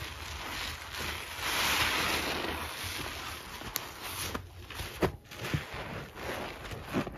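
Wet sponge squeezed and kneaded by rubber-gloved hands in thick soap lather: squelching and a hissing crackle of foam, loudest about a second and a half in, with a few short sharp squishes later.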